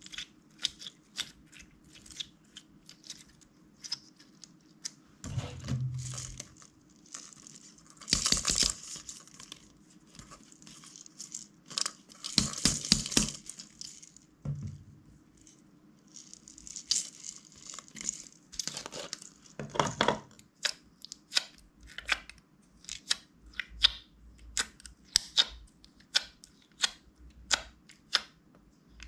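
Slime being squished, pressed and stretched by hand: a steady run of small sticky clicks and pops, with a few longer crackling stretches, the loudest a little after a third of the way in and near the middle.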